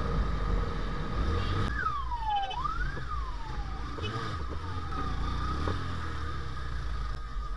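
Motorcycle engine and street traffic rumbling, with a siren-like wail that glides down and back up in pitch a few times in the middle.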